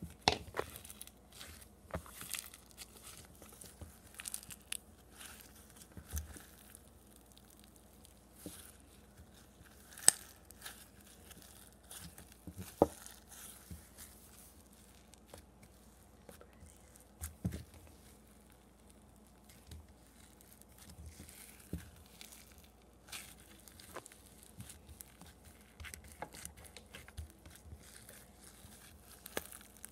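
Floam slime full of small foam beads being kneaded and squeezed by hand: irregular crunching and crackling, with a few sharper, louder clicks.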